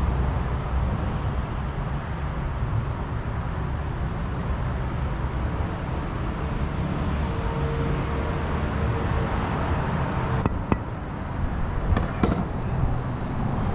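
Steady low workshop rumble, with a few sharp metallic knocks about ten and twelve seconds in as a metal part is handled and set onto the transmission.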